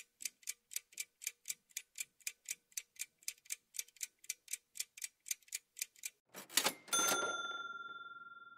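Clock-like ticking of a quiz countdown timer, about four ticks a second. About six and a half seconds in it stops, and a short whoosh and a bell-like chime follow, ringing out slowly as the answer is revealed.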